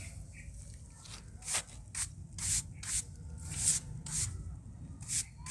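Dry red dirt being scraped and worked by hand and tool in a series of short scraping strokes, about one every half second.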